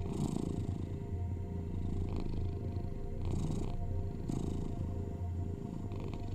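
Domestic cat purring steadily: a low rumble with a breathy swell about every one to two seconds as it breathes in and out, over faint steady binaural tones.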